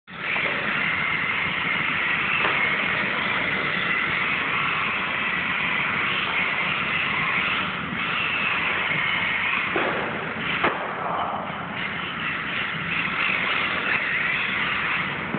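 Traxxas Rally VXL RC car's brushless electric motor whining as the car is driven hard on a hard floor, the pitch wavering with the throttle. A sharp knock comes about two-thirds of the way through.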